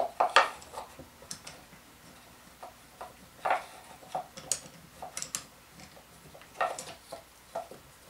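Metal bar clamp being positioned and tightened across a glued-up drawer box: scattered light clicks and taps, about eight in all, as the sliding jaw and handle are worked.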